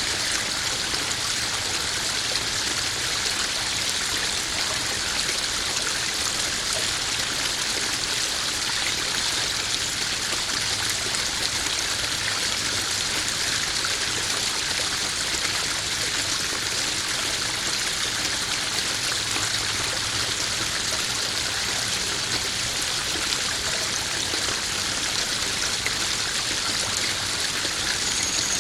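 Small garden waterfall splashing steadily into a koi pond, an even, unbroken rush of running water.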